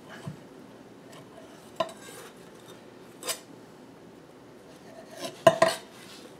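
Chef's knife cutting a thin-crust pizza and knocking on a wooden cutting board: single short clicks about every second and a half, then a louder cluster of knocks and scraping near the end as a slice is lifted on the blade.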